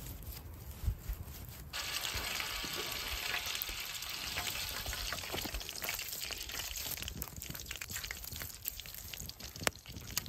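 Hot oil in a pan sizzling as raw potato wedges are laid into it. The sizzle starts suddenly about two seconds in and is dotted with crackling pops, then eases a little in the last few seconds.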